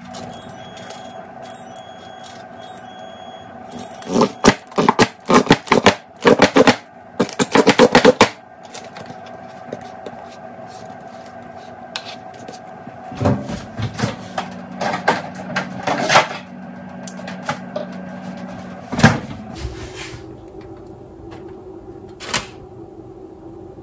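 Plastic squeeze bottle of barbecue sauce squeezed upside down, sauce sputtering out in a long run of sharp clatters and then a sparser second run, over a steady low hum.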